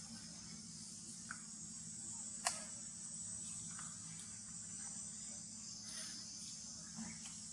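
Steady, high-pitched insect chorus droning throughout. A single sharp click about two and a half seconds in, with a few faint short chirps around it.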